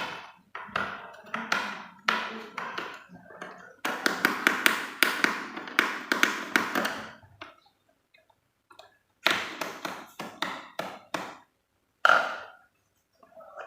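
Quick sharp clicks and taps of hands and tools on a laptop's plastic and metal bottom case as its screws are freed and the case is worked loose. A dense run of clicks comes about four to seven seconds in, and more clusters come near the end.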